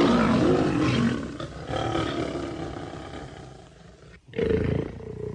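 Lion roar sound effect: a long roar that fades away, then after an abrupt break a second, shorter roar that also fades.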